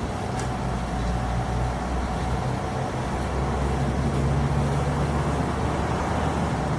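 Truck's diesel engine running with a steady low drone, its pitch rising slightly partway through.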